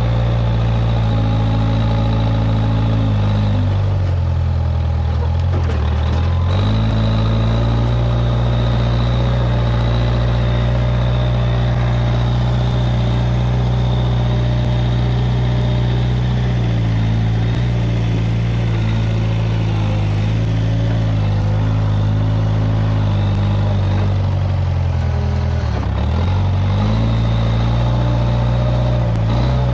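Diesel engine of a Case 580G backhoe loader running steadily at a low, even pitch. Its pitch sags briefly twice, a few seconds in and again near the end, then picks back up.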